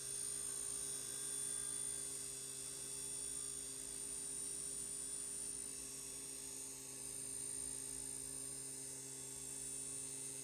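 CNC milling machine's spindle running an end mill through soft jaws, milling the part's profile into them. A steady, even hum with a faint high hiss.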